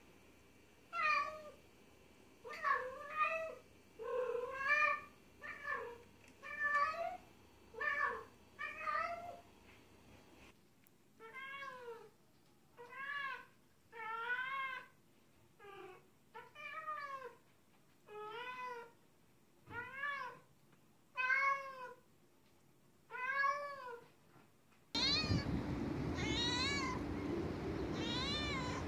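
Domestic cats meowing over and over, short rising-and-falling meows about a second apart. From near the end the meows sit over a louder steady background noise.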